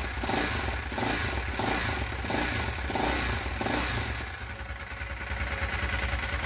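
Single-cylinder 166FMM motorcycle engine running, freshly rebuilt with a new crankshaft, piston and cylinder. Its note swells in a regular rhythm about every two-thirds of a second for the first four seconds, then settles to a steadier, quieter run. No knock is audible; only a light piston rustle, which the owner puts down to parts quality.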